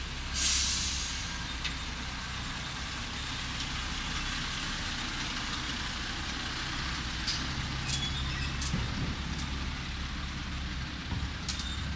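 Diesel engine of a Volvo F10 crane truck running steadily as a low hum. A loud hiss about half a second in fades over a second, with a few light clicks later.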